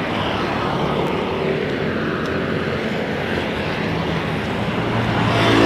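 Road traffic passing along a highway: a steady rush of engine and tyre noise, with one vehicle's engine growing louder near the end.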